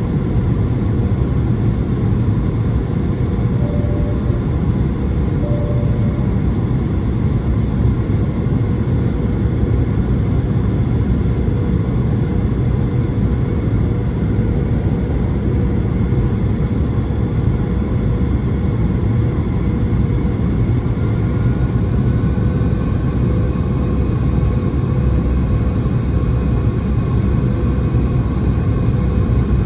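Steady cabin noise inside a Boeing 717-200 on final approach: the hum of its rear-mounted Rolls-Royce BR715 turbofans and the rush of airflow, with a steady tone throughout. A faint whine rises briefly about two-thirds of the way in.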